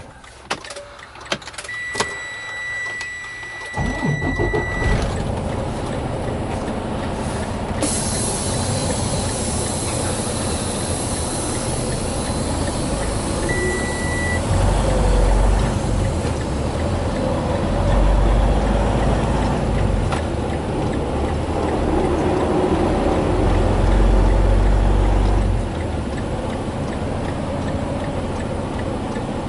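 Semi truck's diesel engine, heard from inside the cab. A steady high warning beep sounds, the engine starts about four seconds in, and it then runs and pulls as the truck moves slowly, growing louder several times.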